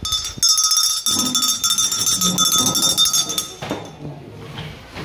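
Electric school bell ringing for about three seconds, a fast metallic rattle over a steady high ring that starts just after the opening and cuts off suddenly. It is the bell for the end of the lesson.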